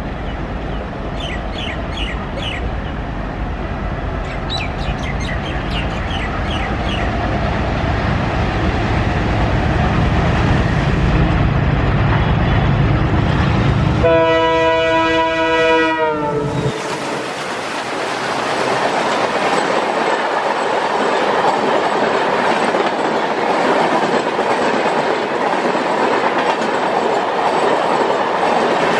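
Diesel-hauled express train approaching with a low engine rumble. About halfway through, a diesel locomotive sounds its multi-tone horn for about two and a half seconds, the pitch sagging as it ends, and then the train passes at speed with wheels clattering over the rail joints.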